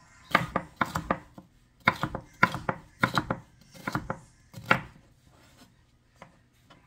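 A large kitchen knife chopping a bell pepper on a cutting board: quick runs of sharp knife strikes on the board, stopping about five seconds in.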